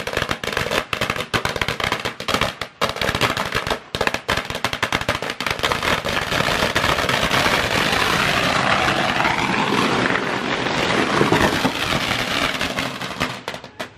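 A long string of firecrackers bursting inside a brick firecracker kiln: a rapid run of sharp cracks that thickens into a dense continuous crackle in the middle and stops shortly before the end. The crackers are set off to announce that a worshipper's wish has come true.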